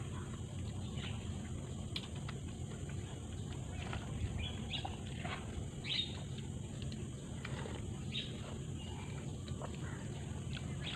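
Close slurping and chewing of bakso noodles and meatballs, with a plastic fork clicking now and then against the bowl. Birds chirp in the background over a steady low outdoor hum.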